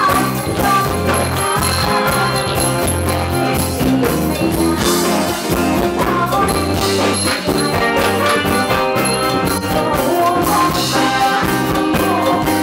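Live band playing an amplified Thai ramwong dance song, with a singer's voice over the band.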